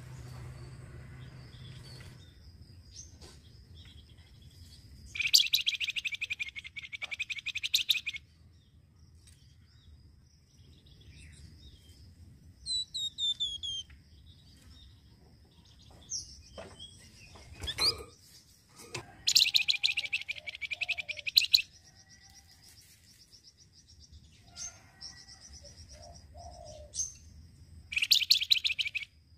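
Caged flamboyan songbird singing: three loud bursts of rapid chattering trill, each two to three seconds long, with scattered short chirps and a few quick descending whistles between them.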